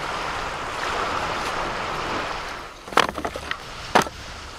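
A steady rushing noise, then driftwood logs set down on a pile. There is a sharp wooden knock about three seconds in, a few light taps, and another knock about a second later.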